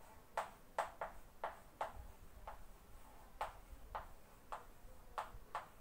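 Chalk tapping and scratching on a chalkboard as a word is written by hand: about a dozen short, sharp ticks at an uneven pace.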